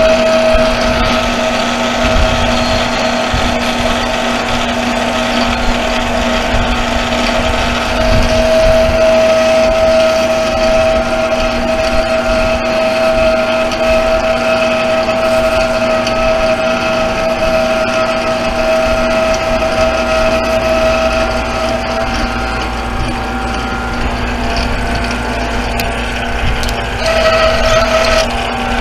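Metal lathe running while a tool cuts a brake rotor hub, a steady mechanical whine of motor and gearing. Its higher tone fades out about three-quarters of the way through and comes back shortly before the end.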